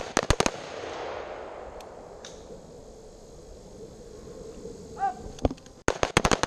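AR-style rifle firing rapid strings of shots very close by: about four shots in quick succession at the start and a faster string of about six near the end, each crack trailing off in echo. A fainter single shot comes in between.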